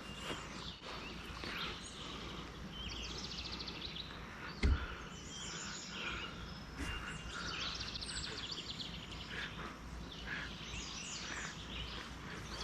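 Birds chirping and singing over a low steady outdoor rumble, with one dull thump a little over a third of the way through.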